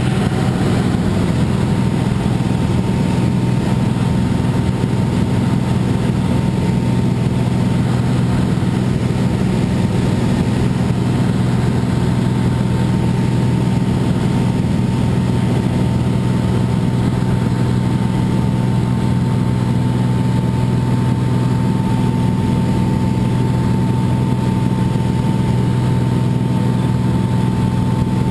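Steady drone of a light aircraft's engine and propeller, heard from on board in flight, with a faint steady whine riding above it.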